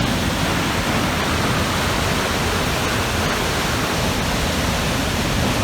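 Maligne River rushing through the narrow limestone gorge of Maligne Canyon: a loud, steady wash of falling water with no breaks or changes.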